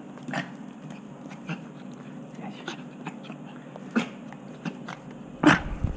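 A small chihuahua-type dog makes several short, scattered vocal sounds during rough play, the loudest about five and a half seconds in.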